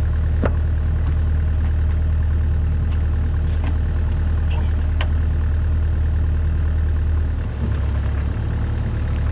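Bobcat 337 compact excavator's engine running steadily, its note dipping and shifting briefly about seven and a half seconds in. A couple of sharp clicks, about half a second and five seconds in.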